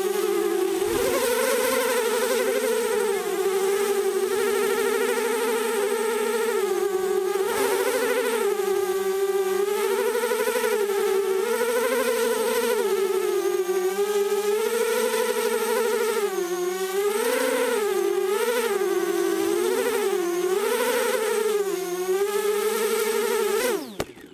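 Custom AB1 mini quadcopter's electric motors and propellers whining with a steady buzz, the pitch wavering up and down with the throttle. Near the end the pitch drops quickly and the motors stop as the quad lands.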